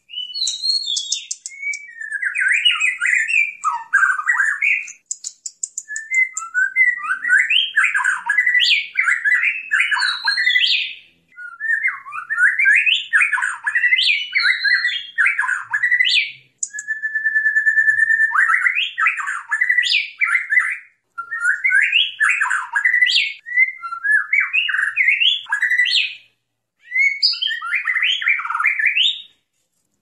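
White-rumped shama (murai batu) singing: loud, varied phrases of quick up-and-down whistled notes in bursts of a few seconds with short pauses between them, and one long, level whistle a little over halfway through.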